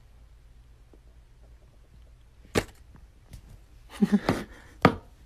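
A few sharp knocks or clacks: one about two and a half seconds in, a quick cluster around four seconds, and a last one near the end.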